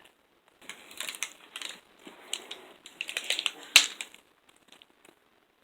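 L.O.L. Surprise toy packaging being pulled and worked at by hand: plastic crinkling and crackling in short irregular bursts, with one sharp snap just before four seconds in.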